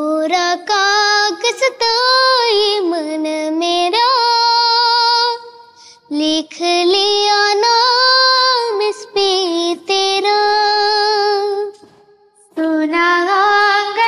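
A high girl's voice singing a song, holding long, wavering notes, with two short breaks.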